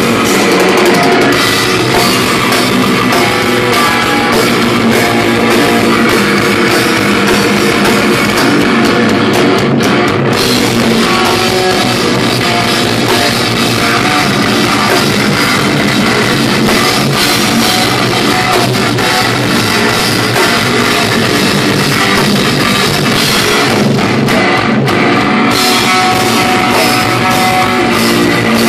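A black metal band playing live: distorted electric guitar and a drum kit with cymbals, loud and dense without a break.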